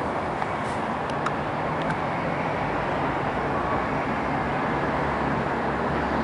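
Steady rushing outdoor background noise with a low hum, like distant traffic or engines, with a few faint clicks in the first two seconds.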